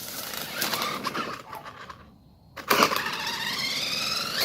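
Small Polaris Outlaw youth ATV running with a loud mechanical clicking, which the owner says is getting worse. About two seconds in the sound drops away briefly, then comes back sharply and rises steadily in pitch as it revs up.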